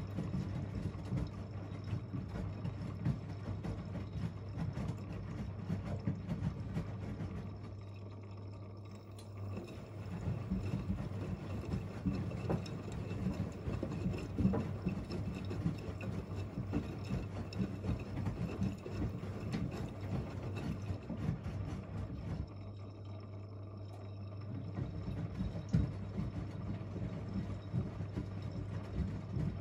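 Front-loading washing machines mid-cycle: drums tumbling the wash with water sloshing over a steady motor hum. The sound eases off briefly twice, about eight and twenty-three seconds in, as the drums pause between turns.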